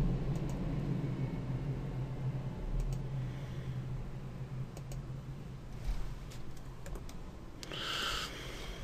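Scattered computer mouse clicks, single and in pairs, over a steady low electrical hum, with a short scraping rustle near the end.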